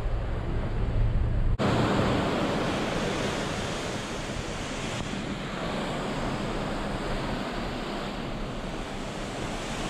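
Low wind rumble on the microphone, then, from about a second and a half in, a steady rush of sea water churning into white foam along a cruise ship's hull.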